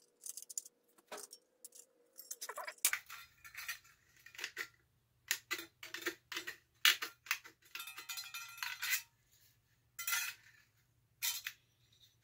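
Tin snips cutting through the thin tinplate of an Altoids tin: a string of irregular snips and metallic clinks as the back panel is cut out.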